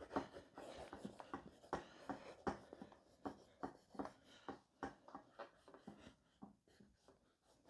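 Quick pencil strokes scratching on sketch paper: a string of short, irregular scrapes, a few a second, that thin out near the end.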